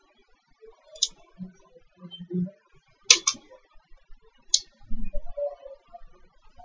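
A few sharp computer clicks: one about a second in, two in quick succession about three seconds in, and another a second later, with faint low sounds in between.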